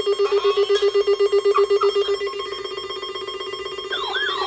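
Weather alert radio sounding its alarm for an incoming NOAA weekly test: a single mid-pitched tone pulsing rapidly, fading after about two seconds. Near the end a warbling, siren-like tone starts to swoop up and down.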